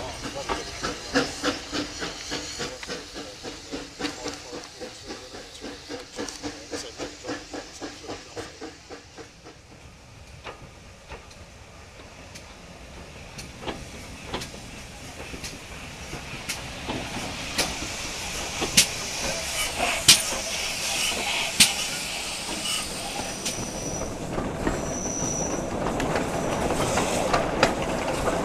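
Steam-hauled passenger coaches running past, their wheels clacking evenly over the rail joints and fading as the train pulls away. Then the noise of a moving train builds again with sharp clacks over the joints, and a brief high wheel squeal comes about three quarters of the way through as the train rounds a curve.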